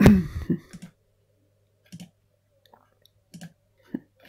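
Computer mouse clicking while dropdown menu options are opened and selected: a handful of short, sharp clicks spaced about a second apart after a louder, denser cluster of sound in the first second.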